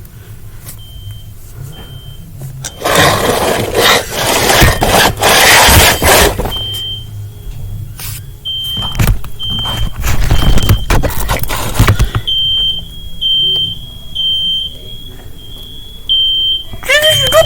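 Smoke alarm beeping: short, high, single-pitch beeps that repeat and become almost continuous in the last few seconds. A loud burst of scraping noise covers the beeps for a few seconds early on.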